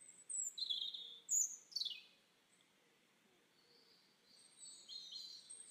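Birds chirping: quick high chirps and short whistles, some falling in pitch, in two bunches with a quieter gap of about two seconds between them.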